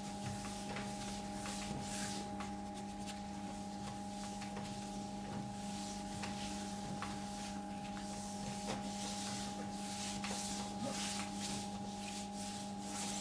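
Paper towel wiped across a flat-screen TV, making a series of soft swishes about once a second over a steady hum.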